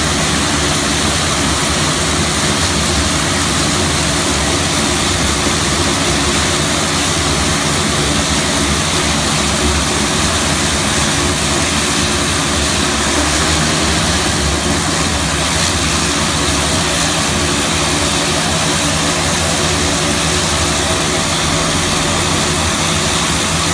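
Daily Air Dornier 228 twin-turboprop commuter plane with its two Garrett TPE331 engines running steadily on the ground, a loud even drone of engines and propellers with a thin high whine over it.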